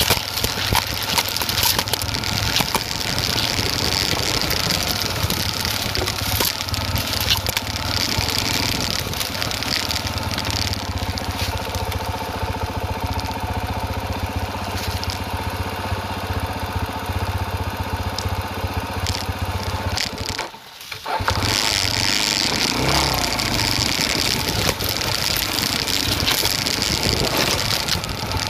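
Off-road motorcycle engine running at low, steady revs while riding a dirt trail, with a rushing hiss over it. A little past twenty seconds in, the sound drops out for about half a second, then comes back.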